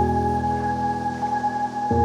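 Background electronic music: sustained synth chords, changing chord just before the end.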